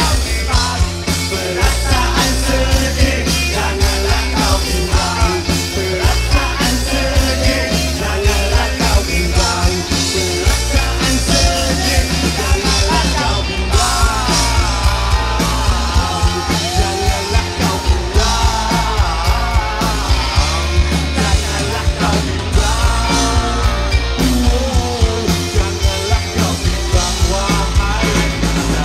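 Live rock band playing through a loud PA: electric guitars, bass and a steady drum beat, with a singer. Heard from within the crowd.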